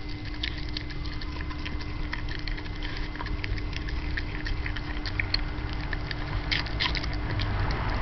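Jack Russell Terrier eating fish and vegetables from a ceramic bowl: quick, irregular wet clicks and smacks of chewing and lapping, busiest a little before the end, over a steady low hum.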